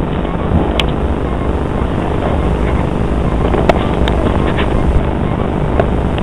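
Aircraft engine running steadily on the ramp: a loud, even rumble. A few short clicks sound over it: about a second in, near the middle and near the end.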